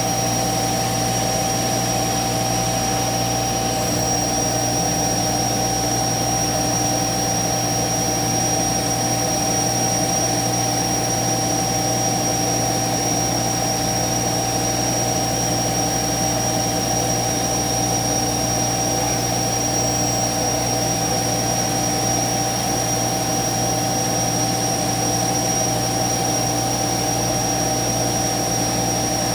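A CNC router running with its spindle and dust extraction on: a steady machine drone with a constant high whine over a low hum.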